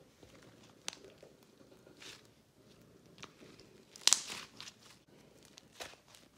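Model Magic and water slime being stretched and squeezed by hand, giving a scatter of short sticky crackles and pops. The loudest comes about four seconds in.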